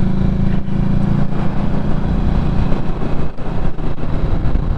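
Motorcycle engine running steadily while riding, heard from on the bike with wind rushing over the microphone.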